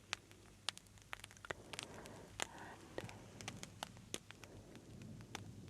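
Close-miked crackling: a scatter of sharp, irregular clicks and crackles, with faint breathy sounds in between.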